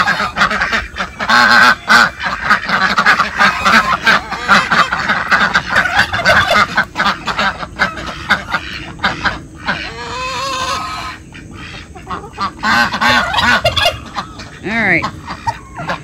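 A flock of domestic ducks and geese calling at feeding time, with many overlapping quacks and honks in a loud, continuous clamour that eases briefly just past the middle.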